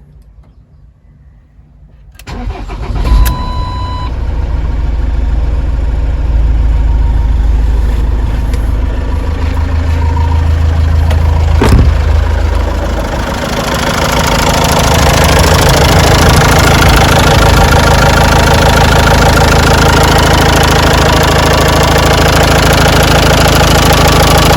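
Ford Transit 2.2 diesel engine starting about two seconds in, then idling steadily. A short beep comes just after the start. About halfway through, the running sound becomes louder and fuller.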